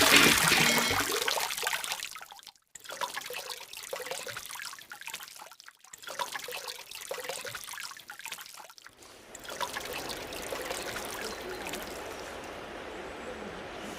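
Guitar music fading out in the first couple of seconds, then a river trickling and flowing over stones. The sound drops out briefly about three and six seconds in, then settles into a steady flow of water from about ten seconds in.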